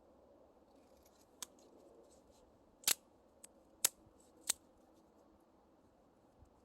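A handful of sharp clicks, three of them loud, coming about three, four and four and a half seconds in, with lighter ticks and crackles around them.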